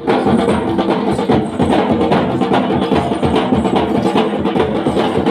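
Music with prominent drums and percussion, a steady beat running throughout.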